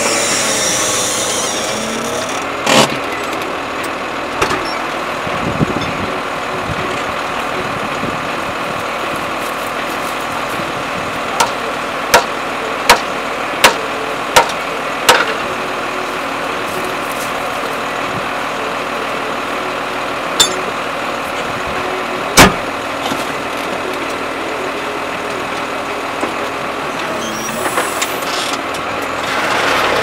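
New Holland TM130 tractor engine running steadily, with a series of sharp knocks about a third of the way in and one more later on.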